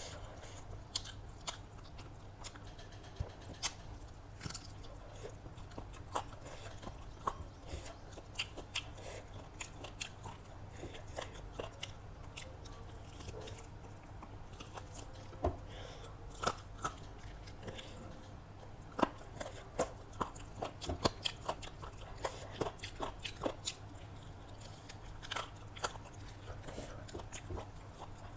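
Close-miked eating: biting and chewing chicken biryani and salad, with irregular wet mouth clicks and smacks, busiest about two-thirds of the way through. A faint steady low hum runs underneath.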